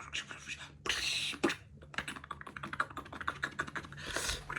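Kitten play-fighting with a hand: rapid, irregular scratching and clicking of its claws and scuffling paws, with two short breathy hissing bursts, about a second in and near the end.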